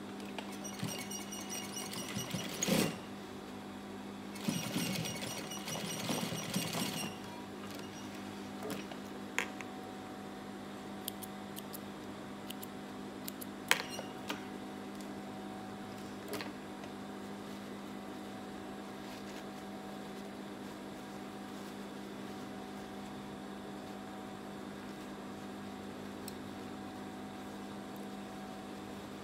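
Gemsy industrial sewing machine stitching through denim in two short runs of a couple of seconds each, over a steady low hum. A few light clicks follow.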